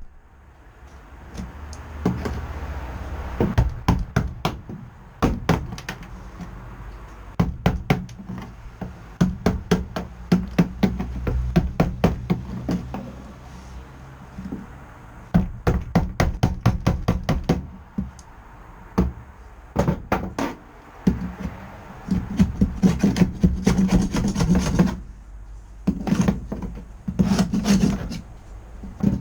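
A hammer striking a cold chisel in quick runs of sharp knocks with short pauses, chipping bitumen sound-deadening off a classic Mini's steel floor pan.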